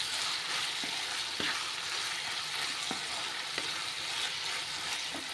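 Citron pieces, ginger and green chillies sizzling in oil in a nonstick kadai, stirred with a wooden spatula. A steady frying hiss runs throughout, with a few soft taps of the spatula against the pan.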